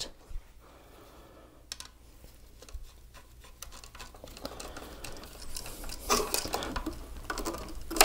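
Screwdriver turning the back-wire terminal screw on a USB receptacle to clamp the hot wire behind the pressure plate: faint scattered clicks at first, then busier small clicks and scraping of metal on metal in the second half.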